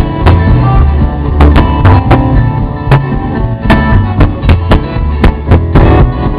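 Live rockabilly band playing an instrumental passage with guitar, a walking bass line and steady drum beats, recorded loud and muddy with very bad sound quality.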